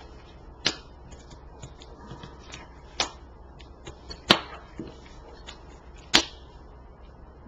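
Tarot cards being handled over a table: four sharp taps spaced a second or more apart, the third the loudest, with faint light card ticks between them.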